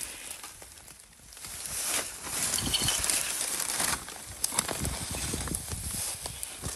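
Rustling and crackling in dry grass and leaves, with scattered sharp clicks and ticks. It is quiet for about the first second and then steady from about two seconds in.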